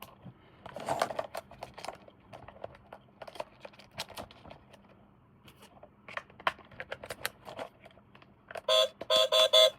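Plastic toy parts and packaging being handled, with scattered light clicks and taps. Near the end a battery-powered toy starts a rapid electronic beeping, about five loud beeps a second.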